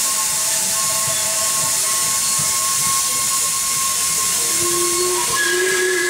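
Steam hissing steadily from a standing narrow-gauge steam locomotive, with a thin steady whistling tone in the hiss. About five seconds in, a steam whistle starts sounding, a low and a high note together.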